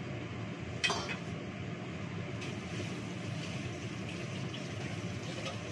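Tap water running into a kitchen sink while something is rinsed by hand, with one sharp clatter just under a second in, over a steady low hum.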